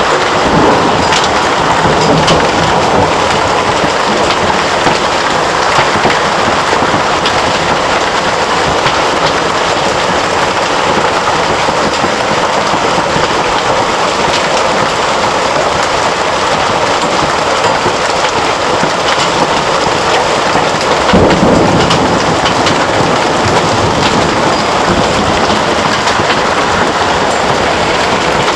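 Heavy hailstorm with rain: a dense, steady downpour with many sharp cracks of large hailstones striking hard surfaces. A deep rumble swells about three-quarters of the way through.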